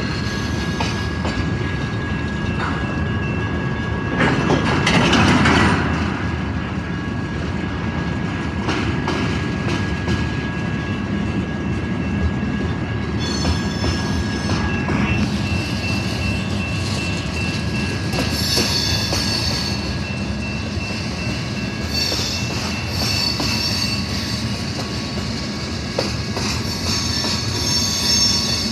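Freight cars rolling slowly past, wheels clattering and rumbling on the rails, louder for a couple of seconds about four seconds in. From about halfway on, high-pitched squealing comes and goes several times, typical of wheel flanges rubbing the rail.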